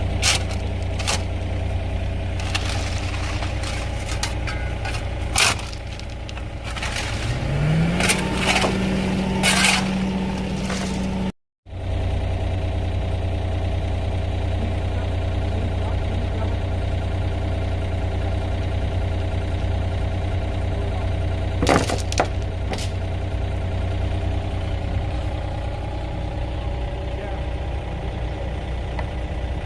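Engine of heavy digging equipment running steadily, with a rise in pitch about eight seconds in that holds for a few seconds as it takes on load. Scattered sharp knocks come over it, and the sound cuts out briefly near the middle.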